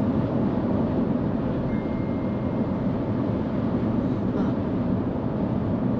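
Steady road noise inside a minivan's cabin moving at highway speed: tyre and wind noise, even and unchanging.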